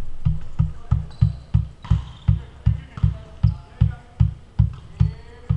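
Deep bass-drum beat of music, about three even thumps a second, with faint voices; the beat stops near the end.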